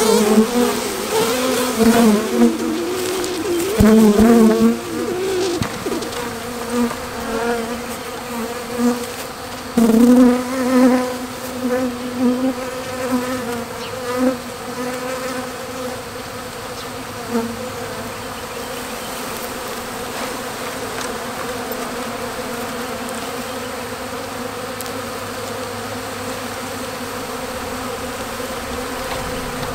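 A swarm of honey bees buzzing. Bees flying close by give a loud buzz that wavers in pitch over the first dozen or so seconds, then it settles into a steadier, quieter hum of the clustered mass.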